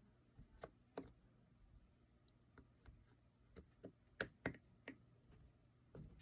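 Faint, irregular clicks and light taps of small metal parts of a Penn Spinfisher 5500 spinning reel being handled while the rotor is fitted onto it, a little over a dozen over the few seconds.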